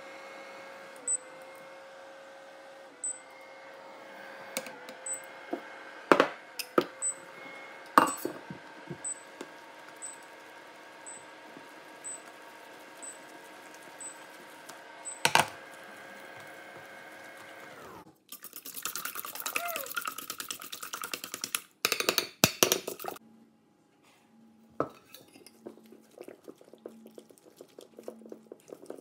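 Kitchen utensils knocking and scraping in a metal saucepan and a stainless steel bowl as choux pastry dough is beaten, with several sharp clanks over a steady hum. A burst of clatter comes about two-thirds of the way through.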